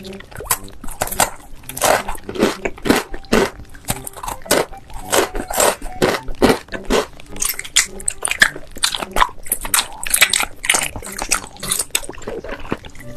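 Crunchy mukbang-style chewing and biting: a quick, irregular run of loud crunches, several a second, with wetter chewing between them.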